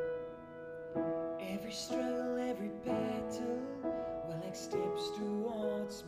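Upright piano played in slow chords, with a man's voice singing along over it from about a second and a half in.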